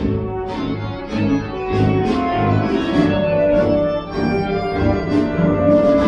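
Orchestral ballet music: sustained chords and held notes, with short sharp accents about twice a second.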